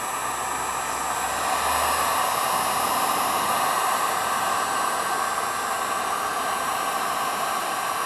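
Electric heat gun running steadily, a rushing blast of hot air with a faint steady whine, played over a hazy plastic headlight lens to heat it. It gets slightly louder about a second and a half in.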